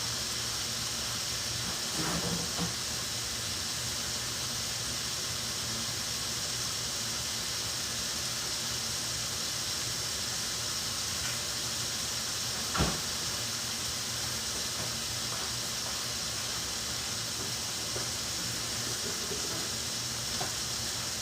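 Stir-fry vegetables sizzling steadily in a skillet, with one sharp click about halfway through.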